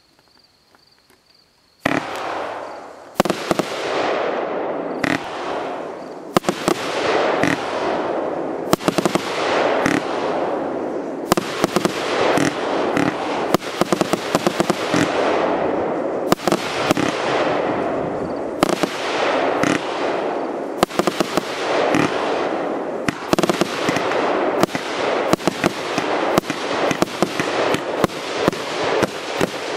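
A 100-shot firework combo of four compact cakes firing a rapid, continuous barrage of launches and aerial bursts, starting about two seconds in.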